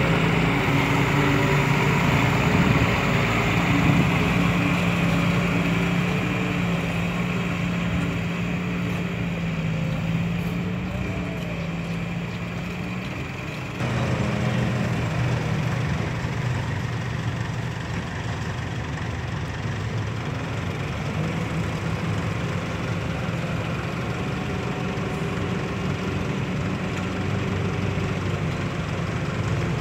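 Diesel engine of an Isuzu Deca six-wheel dump truck running steadily as the loaded truck works across a muddy site; the engine sound changes abruptly about halfway through.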